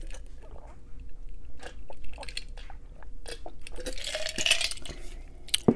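A person gulping and swallowing a drink from a glass: a run of small wet clicks, then a breathy exhale. A single sharp knock comes near the end.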